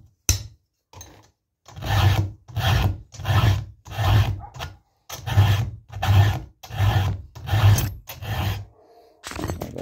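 Round file being pushed by hand across a chainsaw chain's cutter teeth: about ten even push strokes, roughly one every 0.7 s, the file lifted clear on each return, stopping shortly before the end.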